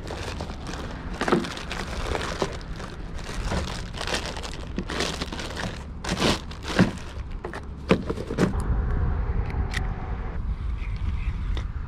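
Cardboard reel box and plastic wrapping being handled and pulled open: crinkling, rustling and sharp little crackles and knocks. A steady low rumble runs underneath and grows louder in the last few seconds.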